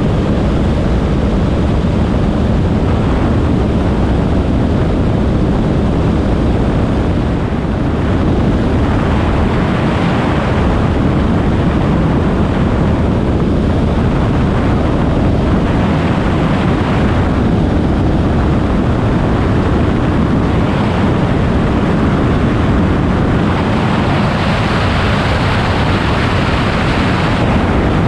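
Steady rush of airflow over a Schweizer 1-23 glider's canopy and fuselage in unpowered flight, with wind buffeting the microphone. The rush swells now and then and grows brighter near the end.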